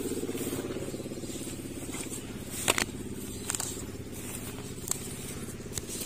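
A small engine running steadily at idle, with a few short sharp clicks about halfway through.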